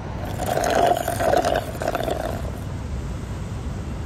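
A loud, harsh, fluttering noise lasting about two seconds, over a steady low rumble of street traffic.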